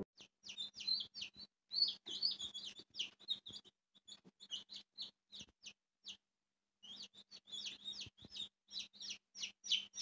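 A group of young chicks peeping: many short, high, downward-sliding peeps, several a second and overlapping, broken by a short pause about six seconds in.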